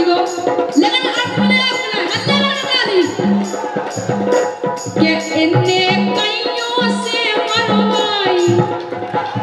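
Bundeli Rai folk music played live over a sound system: a singer's voice over a steady drum beat of about two strokes a second, with a bright metallic jingle on the beats.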